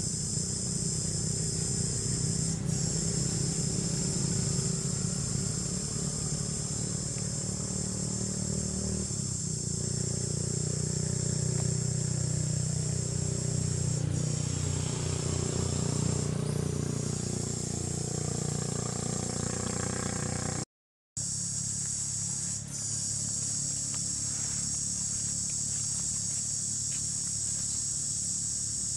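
Steady high-pitched insect chorus of several overlapping tones, over a low steady rumble. The sound cuts out for a moment about two-thirds of the way through.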